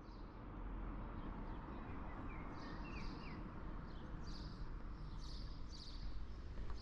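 Small birds chirping repeatedly over a steady outdoor rush with a low rumble, the sound fading in over the first second; the chirps start about two seconds in and come every half second or so.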